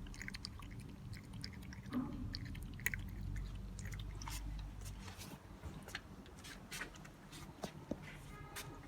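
A cat eating wet food: irregular wet chewing and smacking clicks.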